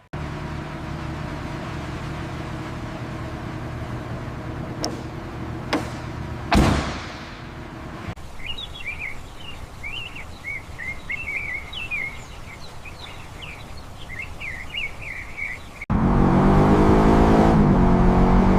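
A steady mechanical hum with a short whoosh about six seconds in, then birds chirping. Near the end the Toyota Supra's engine comes in suddenly, loud, its pitch wavering as it revs.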